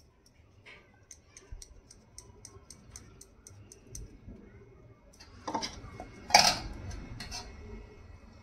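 Steel spoon and steel dishes clinking a few times, the loudest clatter about six seconds in. Before that, a faint even ticking about four times a second.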